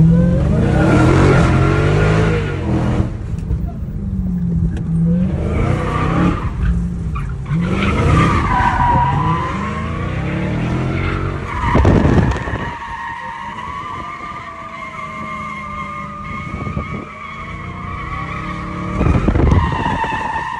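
Dodge muscle car driven hard from inside the cabin, the engine revving up and down as it accelerates and slides. From about halfway through, the tires give a long, steady squeal through a drift, with a loud surge of power near the end.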